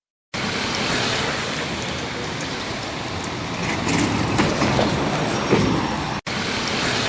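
Steady rushing vehicle noise with scattered clicks and knocks, starting abruptly just after the beginning. It cuts off briefly about six seconds in and resumes as another steady noise.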